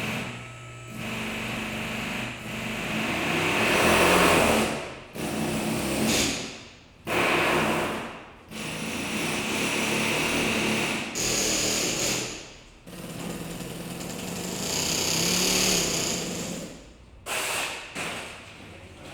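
Auto repair shop ambience: a power tool run in repeated bursts of one to four seconds, stopping and starting several times, over a steady low hum.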